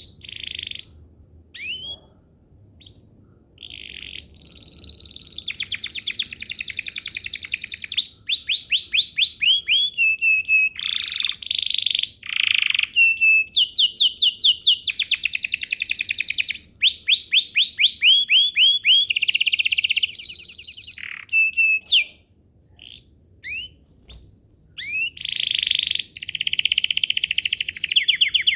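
Domestic canary singing: a long song made of rapid trills, runs of quick repeated notes whose speed and pitch change from one phrase to the next. A few short chirps open the song, and past the middle it breaks off into scattered chirps before the trilling starts again near the end.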